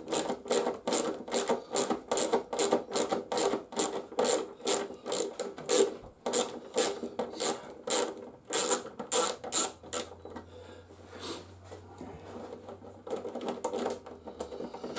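Hand screwdriver backing Torx bolts out of a motorcycle's plastic body panel: an even run of scraping clicks, about two or three a second, that stops about ten seconds in, leaving only faint handling sounds.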